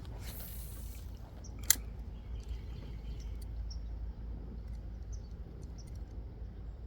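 Pond-side ambience with a steady low rumble and faint short high chirps scattered through it. There is a brief hiss near the start, and a single sharp click comes a little under two seconds in.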